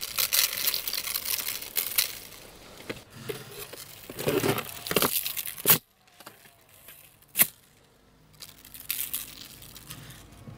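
Coarse salt grains crackling as they land on a plastic tray and raw beef, then hands rubbing and handling the salted meat, with two sharp clicks about halfway through.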